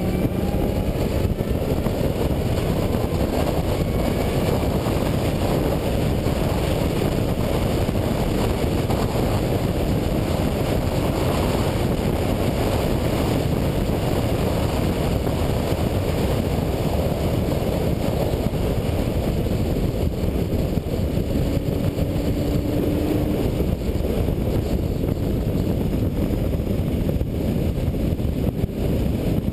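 2003 Mustang SVT Cobra's supercharged 4.6-litre V8, through a MAC exhaust, running at speed on track under heavy wind and road rumble. Its pitch climbs briefly near the start.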